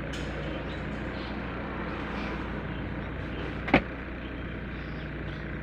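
Steady background hiss with a faint low hum, broken by a single sharp click a little under four seconds in.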